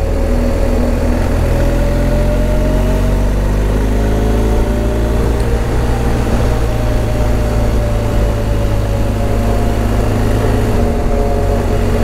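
BMW R 1250 GS Adventure's boxer-twin engine running at an easy, even pace while riding, its note rising and falling gently, under heavy wind rumble on the helmet microphone.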